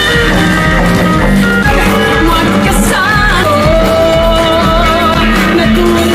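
A song with a singer over a band with a steady beat.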